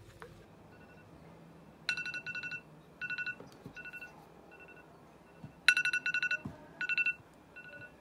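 Electronic timer alarm beeping: short runs of rapid, high-pitched beeps, repeating over and over, some runs louder and some fainter. It signals that the cooking time is up.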